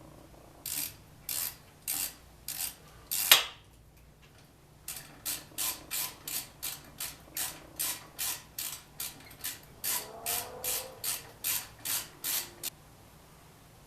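Ratchet wrench tightening brake caliper bolts: a run of short, sharp ratcheting strokes, a few slow ones, a pause, then a quicker steady series of about twenty strokes that stops abruptly.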